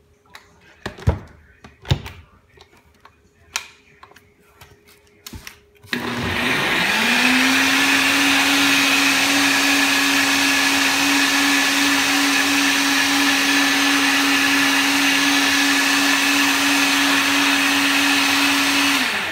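A few knocks and clicks as the cup is handled and seated on a NutriBullet Rx blender base. About six seconds in, the motor starts, rises quickly to a steady high whine and runs, blending a smoothie, until it stops at the very end.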